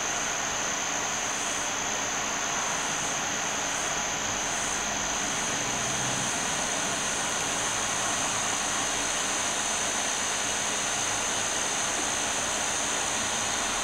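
Steady hiss with a constant high whine running through it and no distinct events.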